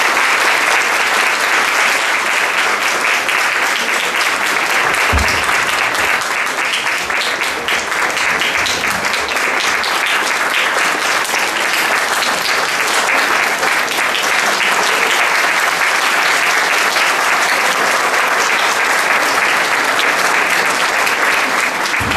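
A crowd applauding: steady, dense clapping from many hands, going on without a break.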